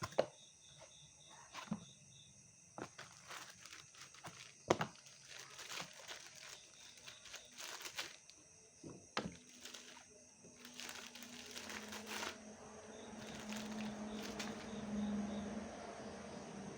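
Packaging being handled and opened: irregular crinkles, rustles and small knocks.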